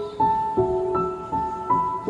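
Gentle background music: a piano melody of single notes, a new one struck a little under every half second.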